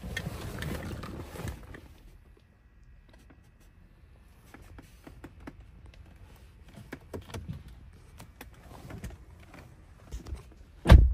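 Rustling handling noise inside a car cabin, then scattered small clicks, and one heavy thump near the end.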